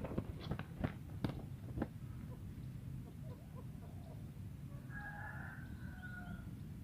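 A few sharp knocks in the first two seconds, then a single bird call lasting about a second and a half, a little past the middle.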